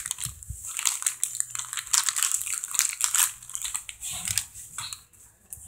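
Irregular rustling and scuffing close to the microphone: handling noise from the phone camera being moved and rubbed against hands and fabric. It thins out and grows quieter near the end.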